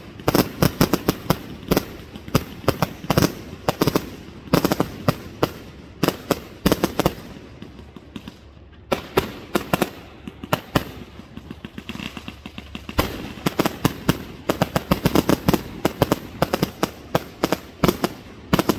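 Fireworks going off all around: a dense, irregular barrage of sharp bangs and crackling pops, several a second, thinning briefly about halfway through before picking up again.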